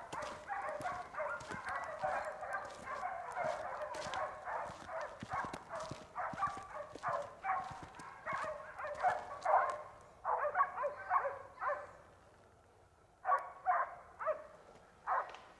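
A pack of hunting dogs barking and baying at a wild boar they have found and are holding at bay, many barks overlapping, faint with distance. The barking breaks off about twelve seconds in, and a few single barks follow near the end.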